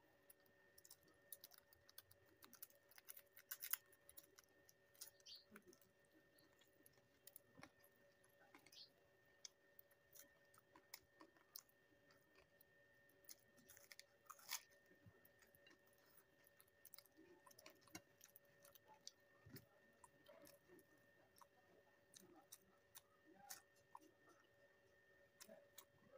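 Close-miked chewing and eating: wet smacks, light crunches and small clicks come every second or so, with a faint steady electrical hum underneath.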